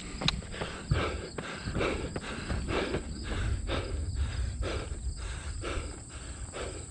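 A runner breathing hard and rhythmically, about two heavy breaths a second, while running a fast mile repeat at close to 5:40 per mile. Running footfalls are heard beneath the breathing.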